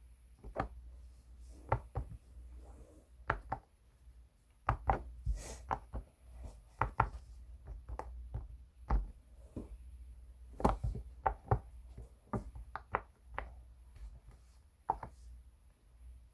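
Bubbles of a silicone pop-it fidget toy being pressed in, a series of short, irregular pops and clicks, some in quick little runs, with pauses between.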